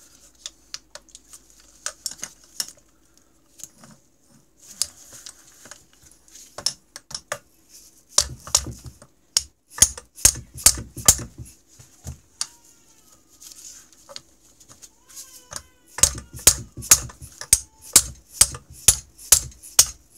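A hammer beating on a socket used as a drift to knock the wrist pin out of a snowmobile engine's piston. It starts as a few light taps, then comes as quick runs of hard metal-on-metal strikes, about two or three a second.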